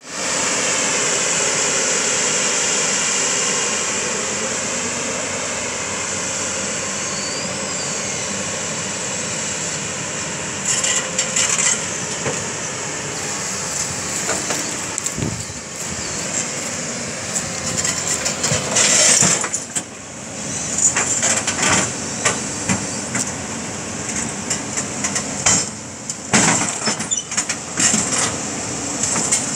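Tracked hydraulic excavator's diesel engine running steadily under load as it pushes its bucket against the ground. From about ten seconds in, irregular metallic knocks and clanks join it.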